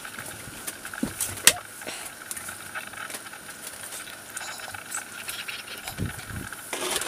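Metal spoon scraping and tapping as cooked rice is scooped from a pot onto a banana leaf: scattered soft clicks, with one sharper click about a second and a half in. A faint steady high hum sits underneath and stops just before the end.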